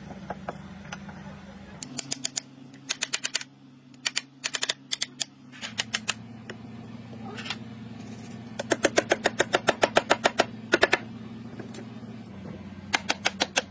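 Bursts of rapid, sharp metal clicks from hand tools worked against a large cast-metal gearbox housing, several a second, in short groups with pauses between. The longest and loudest run comes a little past the middle. A steady low hum runs underneath.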